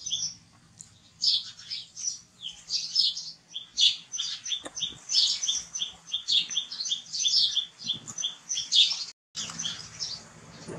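Baby macaque chirping and squeaking while being spoon-fed: runs of short, high-pitched chirps, several a second, with a brief pause about a second in.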